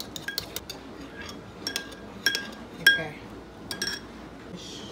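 A metal spoon clinking against a glass bowl while it stirs a melted-butter sauce. The clinks come in an irregular series, each with a short ring, and the loudest is about three seconds in.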